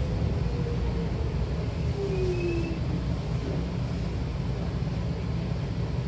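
Running noise inside a Hankyu 8300-series commuter train car: a steady low rumble from the wheels and underfloor equipment as the train moves slowly alongside a platform, with a brief falling tone about two seconds in.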